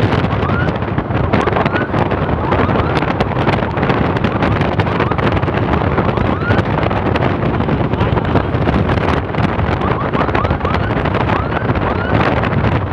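Steady wind buffeting on a helmet-mounted microphone with motorcycle engine noise while riding at speed. Faint short rising sweeps of a siren recur about once a second.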